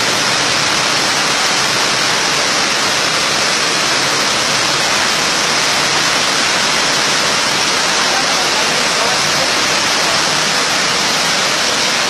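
Floodwater rushing across a road: a loud, steady rush of water that does not change.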